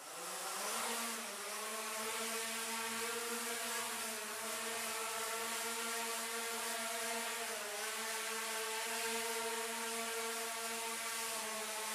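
Armattan 258 quadcopter's four 1800Kv brushless outrunner motors spinning 7-inch propellers. They spool up in the first second, rising in pitch, then hold a steady whine as the quad flies low.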